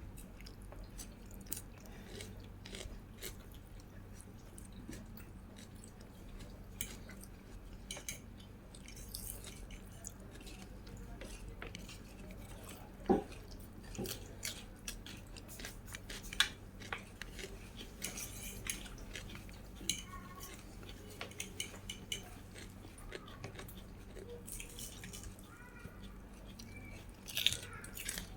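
Close-up eating sounds of a person chewing, with many small wet mouth clicks and a few sharper clinks of utensils against a dish, over a faint steady low hum.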